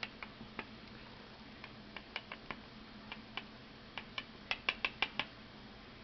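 Small brass lock pins and pin-tumbler parts clicking against a machined aluminium pin tray as they are set out in order: scattered light clicks, then a quick run of about five louder clicks near the end.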